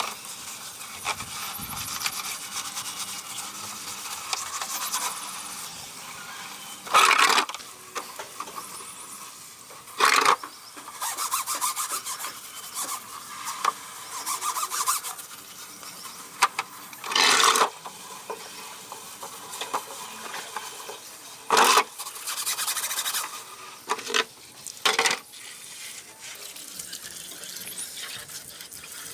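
Repeated rubbing and scraping strokes on a hard surface, with about six louder, rasping strokes of roughly half a second each.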